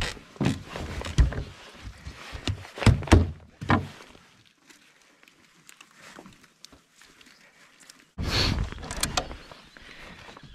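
Knocks and handling noise from a gill net and gear against the hull of a small fibreglass boat as the net is worked by hand, several sharp knocks in the first few seconds. About eight seconds in, a loud rush of noise lasting about a second as the net is pulled over the side.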